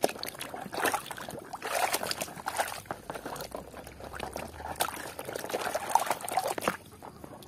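Water pouring and trickling in uneven spurts as a muddy toy is rinsed, with small clicks and knocks of the toy being handled.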